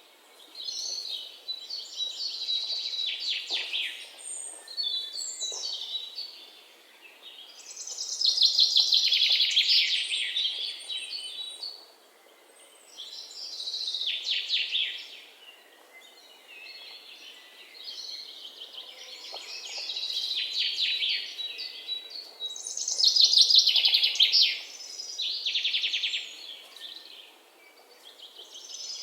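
Songbirds chirping: bursts of fast, high trilling chirps a couple of seconds long, with short pauses between them.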